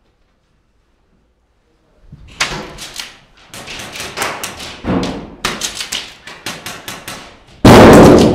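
Airsoft gunfire: rapid strings of sharp cracks begin about two seconds in, with a very loud burst near the end.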